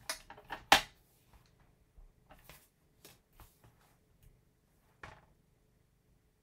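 Crafting handling noise: a few sharp clicks and knocks as a plastic ink pad case is set down on a cutting mat, the loudest about three-quarters of a second in. Then sparse soft taps and rustles of a small die-cut card label being handled, with one more tap about five seconds in.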